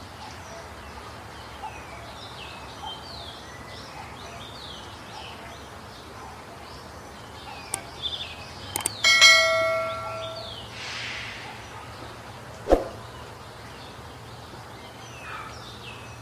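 Small birds chirping steadily in the background. About nine seconds in, a mouse-click sound effect is followed by a bell ding that rings out and fades: a subscribe-button and notification-bell animation. A single sharp click comes about four seconds later.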